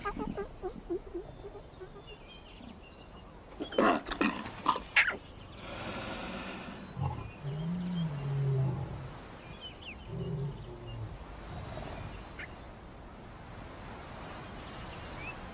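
Lionesses snarling and growling as they attack a cub. There are a few sharp snarls about four seconds in, then low, drawn-out growls a few seconds later.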